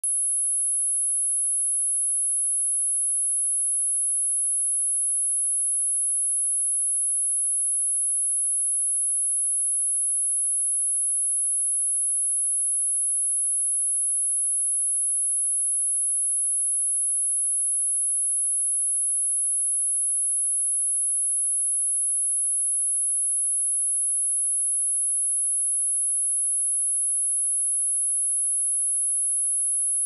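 Pure sine-wave test tone at 10,643 Hz, a single very high-pitched whistle that holds the same pitch and level throughout, generated as a speaker test tone.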